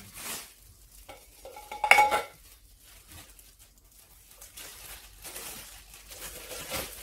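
Plastic wrapping crinkling while a rice cooker's inner pot and lid are handled and packed away, with one loud ringing clank about two seconds in as the pot knocks against the cooker.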